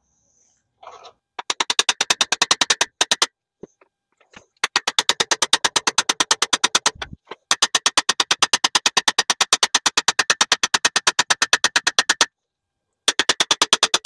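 Rapid, evenly spaced metallic strikes, about eight a second, in several runs with short breaks. This is a cam bearing being driven into an AMC 360 V8 block with a bearing installer.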